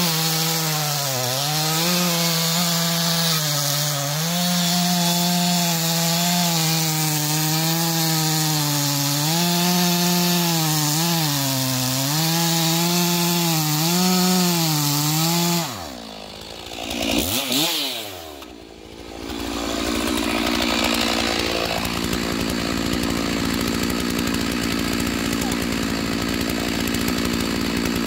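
Stihl 461 chainsaw at full throttle cutting through a thick locust log, its note dipping slightly and recovering as the chain bites. About fifteen seconds in it comes off the cut, revs up and down once, then settles into a steady idle.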